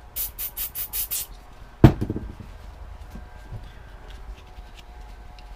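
About six quick rubbing strokes as the worn contacts of a car ignition switch are scrubbed clean, then one sharp knock about two seconds in, the loudest sound, followed by a few faint clicks.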